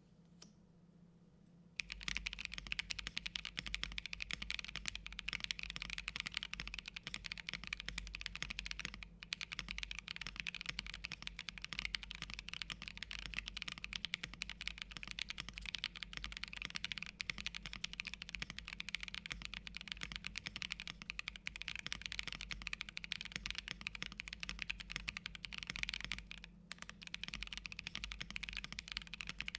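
Fast, continuous typing on a Bakeneko65 custom mechanical keyboard with tactile Neapolitan Ice Cream switches, an FR4 plate and PBT keycaps. The typing starts about two seconds in, with a couple of brief pauses.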